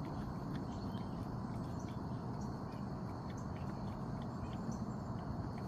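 Quiet outdoor ambience: a steady low background hum with a faint high steady tone and scattered short, high chirps, like insects and small birds.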